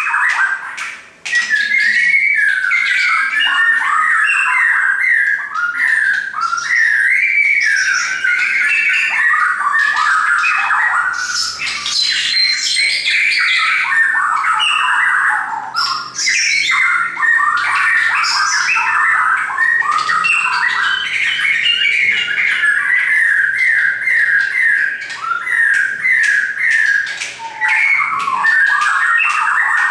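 Caged shama singing a loud, long run of rapid, varied whistled phrases, with a brief pause about a second in.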